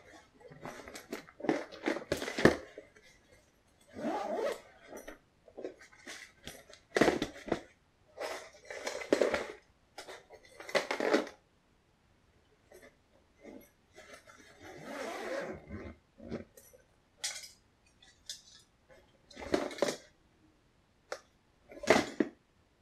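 Fishing tackle being handled and packed: plastic tackle boxes clattering and plastic bait packages rustling as they go into a bag, in short irregular bursts with a pause about halfway.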